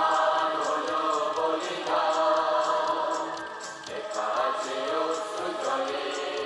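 Choir singing to a musical backing with a steady light beat, about three ticks a second.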